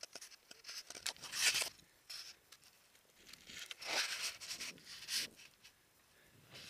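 Boots crunching in snow in a few irregular bursts, the loudest about a second and a half in and again around four seconds in.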